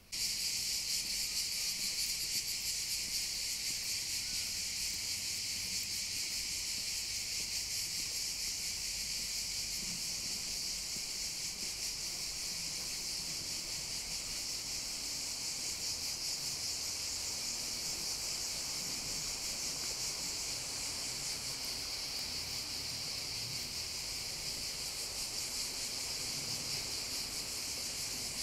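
Steady, dense chorus of cicadas buzzing in summer trees, starting suddenly.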